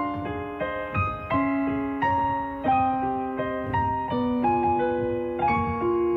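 Solo piano playing a slow melody over chords, each note or chord held for about half a second to a second before the next.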